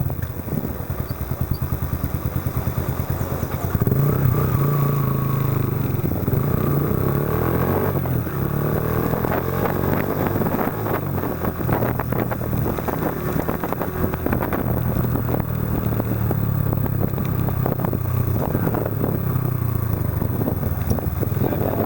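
Yamaha Factor 125's single-cylinder four-stroke engine running under way through a Roncar Aluminium RS aftermarket exhaust. Its note rises and falls with the throttle, growing louder about four seconds in.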